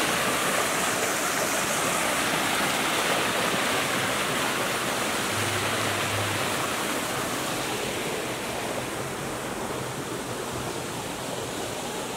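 Steady rushing noise, like water or rain, that eases a little about eight seconds in.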